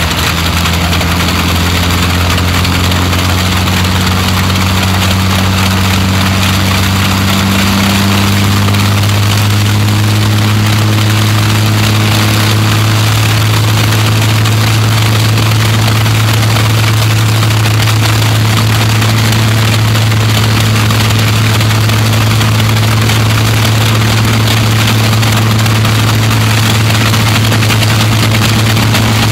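Rolls-Royce Merlin V12 and Bristol Hercules 14-cylinder sleeve-valve radial aero engines running together, propellers turning, in a loud steady drone. Engine speed rises slightly over the first several seconds, then holds steady.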